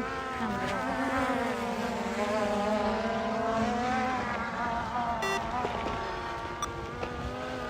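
Skydio 2 quadcopter drone hovering and manoeuvring close by, its propellers giving a buzzing whine whose pitch wavers up and down as the motors adjust speed.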